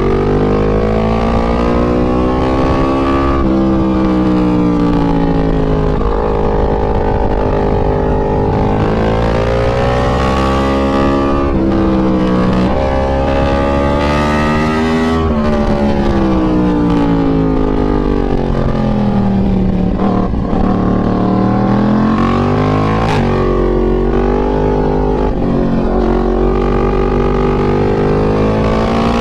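Yamaha MT-10's crossplane inline-four engine pulling hard through the gears, its pitch climbing and dropping back at each upshift. In the middle it falls in a long slide as the bike slows for a corner, then climbs again.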